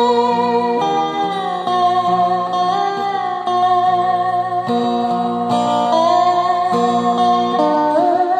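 Steel guitar played with a slide bar: a melody of held notes over sustained chords, several notes gliding between pitches, with a rising slide near the end.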